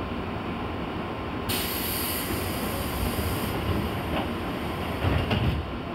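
Inside a JR East 201 series electric commuter train standing at a platform: a steady low rumble, with a sudden high hiss that starts about a second and a half in, eases off and stops near the end, and a few low thumps just before it stops.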